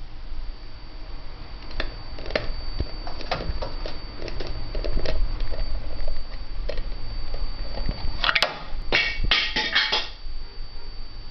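Indian ringneck parakeet's beak tapping, clicking and scraping on the plastic lid of a Vaseline jar as it works the lid open, with a burst of louder clattering knocks about eight seconds in as the lid comes off. A faint steady high whine runs underneath.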